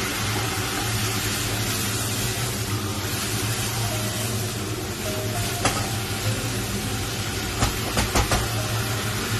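Food sizzling while it is stir-fried in a pan, over a steady low hum, with a few sharp clinks of a utensil against the pan in the second half.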